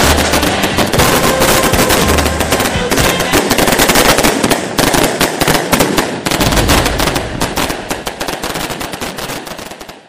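A string of firecrackers going off: a rapid, irregular crackle of bangs that grows quieter over the last few seconds.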